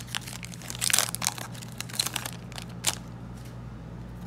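Foil booster-pack wrapper crinkling and crackling as it is opened and the cards are slid out. It comes as a run of short crackles over the first three seconds, then only a few faint ticks.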